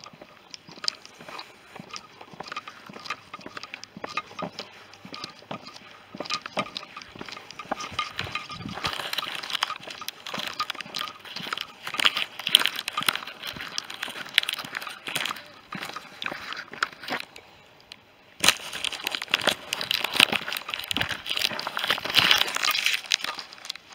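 A walker's footsteps crunching along a dry track, with the rustle and crackle of grass and weeds brushing against the camera. It grows louder about a third of the way in, drops away for a moment near three-quarters through, then picks up again.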